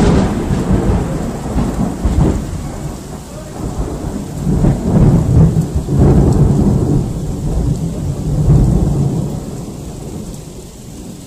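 Thunder rumbling loudly over rain: a long roll that swells several times and fades away near the end.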